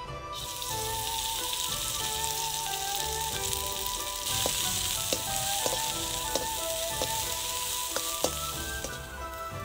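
Green onion and ginger sizzling in hot oil in a wok; the sizzle starts as they drop in and grows louder about four seconds in. A metal ladle stirring them clicks against the wok several times.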